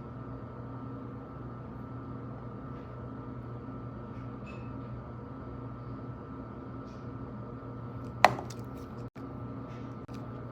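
Steady machine hum with a fixed pitch, like a fan or air-conditioning unit running, with one sharp click or tap about eight seconds in.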